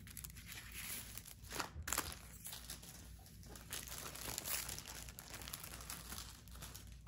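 Faint crinkling and rustling of a plastic-film-covered diamond painting canvas being handled and moved, with a few brief louder crinkles.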